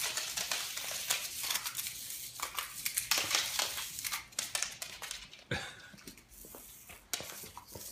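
A Scottish terrier scuffling after a Hexbug toy: an irregular run of quick clicks, scrapes and rustling as it paws and snaps at the bug on tile and rug.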